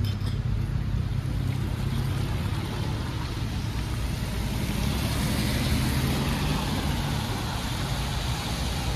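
A Rolls-Royce saloon driving slowly past on a wet road: a low, steady engine hum under the hiss of tyres on wet tarmac, which swells about halfway through as the car passes and then fades.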